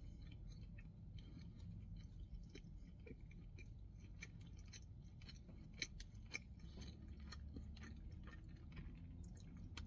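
Faint chewing of a mouthful of burger with crispy onion rings, mouth closed: an irregular run of soft crunching clicks, two of them a little louder about halfway through.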